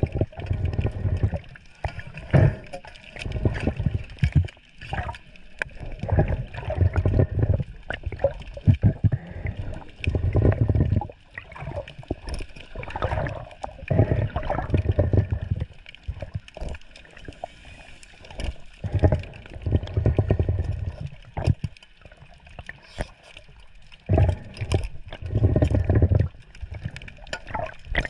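Sea water sloshing and splashing in regular surges, about one a second.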